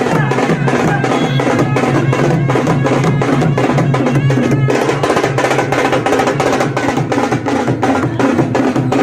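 Music with fast, steady drumming and a melody line over it.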